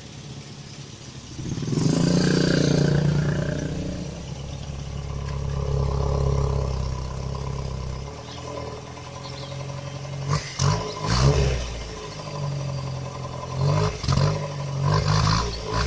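Mitsubishi Colt T120 engine being started: it catches about a second and a half in and runs, settling lower. It then surges in several short, sharp bursts of revving, around ten seconds in and again near the end.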